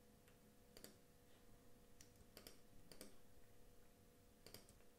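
Near silence with a few faint computer mouse clicks, spaced irregularly, over a faint steady hum.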